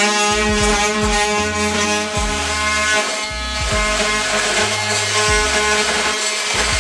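Background music: a steady instrumental track with a bass line that changes note about once a second.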